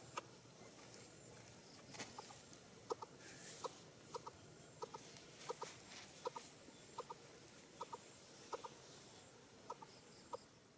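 Coucal giving faint, short clucking notes, often in quick pairs, repeated about once or twice a second from about two seconds in.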